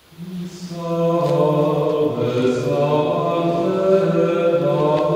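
Men's voices singing a slow liturgical chant with long held notes, fading in during the first second.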